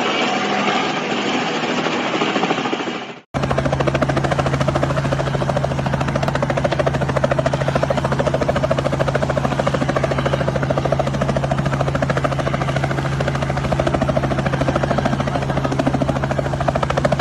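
Helicopter hovering close by: steady rapid rotor chop over a steady engine hum. About three seconds in the sound drops out for an instant and resumes as a different recording of the same helicopter.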